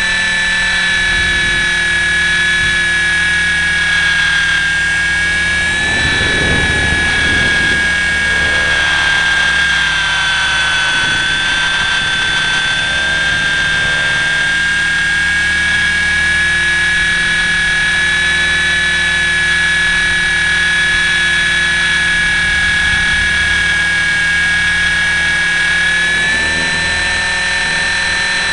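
KDS 450 electric RC helicopter in flight, heard through its onboard camera: a steady high whine from the motor and rotor. The pitch dips a little about ten seconds in and rises again near the end, with a brief low rush about six seconds in.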